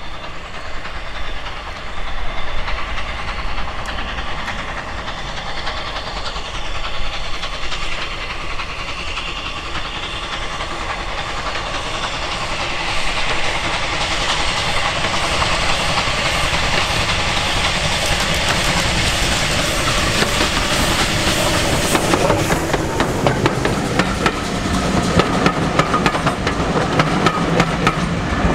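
A steam-hauled train passes with a steady hiss that grows louder from about halfway. In the last quarter the wheels start clattering rapidly over the rail joints.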